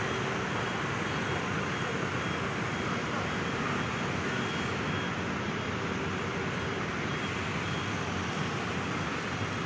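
Steady city street traffic noise from cars and motor scooters on a busy road.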